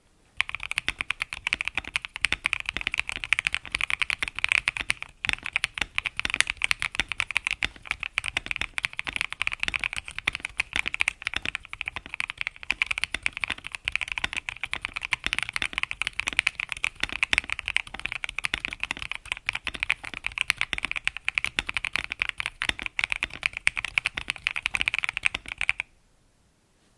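Fast, continuous typing on an Epomaker Mini Cat64 mechanical keyboard with linear switches, a dense run of keystroke clacks that pauses briefly about five seconds in and stops about a second before the end.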